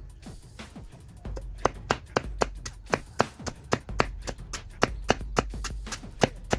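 Banana stem being chopped with a blade: quick, sharp strikes about three to four a second, beginning about one and a half seconds in.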